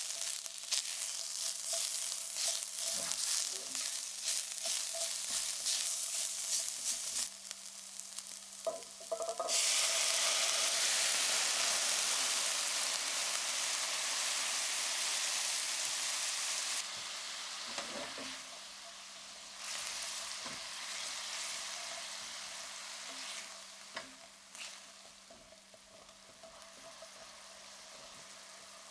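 Sliced shallot and garlic crackling and sizzling in hot oil in a stainless steel pan, stirred with a spatula. About nine seconds in, white wine goes into the pan with a sudden loud hiss, which settles after several seconds into a quieter sizzle and simmer with the occasional scrape of the spatula.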